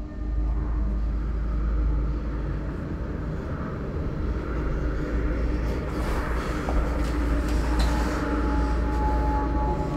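Dark ambient drone of a film score: a heavy low rumble with a hiss that swells about halfway through, and a high held tone joining near the end.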